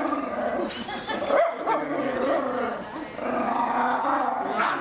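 Miniature schnauzer barking several times while held in its owner's arms, a small dog that doesn't like being held.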